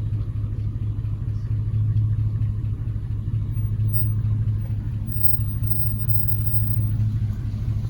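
Vehicle engine idling with a steady low rumble, heard from inside the cab.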